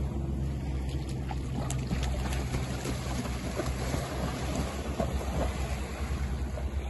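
Wind blowing on the microphone over shallow sea water, with splashing as a swimmer in a wetsuit runs through the shallows and dives in.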